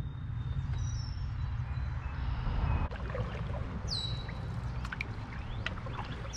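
Canoe drifting on a river, water trickling and lapping around the hull with a few faint knocks and drips over a steady low rumble. Short, sharp high chirps falling in pitch come in about four seconds in and again at the very end.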